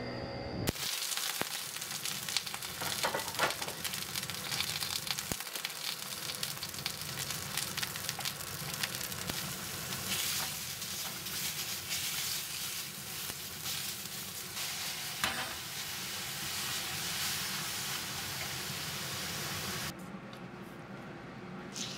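Thin-sliced pork and vegetables sizzling in an iron frying pan, with the scrape and clatter of a utensil stirring them. The frying stops near the end.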